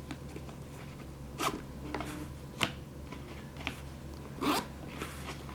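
A sneaker being handled and turned in the hands: a few short rustles and scrapes, one of them a sharp click about two and a half seconds in, over a steady low hum.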